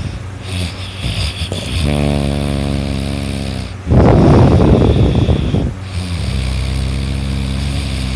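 A sleeping person snoring loudly. A long, low, droning snore holds a steady pitch. About four seconds in comes a louder, rough snore lasting nearly two seconds, and then another droning snore begins.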